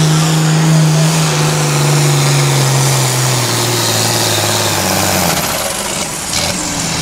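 International Harvester 1466 diesel pulling tractor under full load, dragging a weight-transfer sled. Its engine note drops steadily over about five seconds as the sled's growing load pulls the engine down, then fades away.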